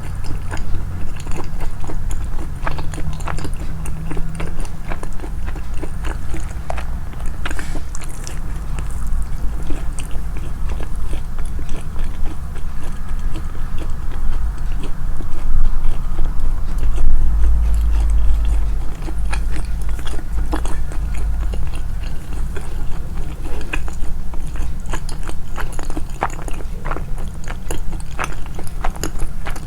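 Close-miked chewing and biting, with many small crisp clicks and wet mouth noises over a heavy low rumble, the chewing sounds boosted in editing.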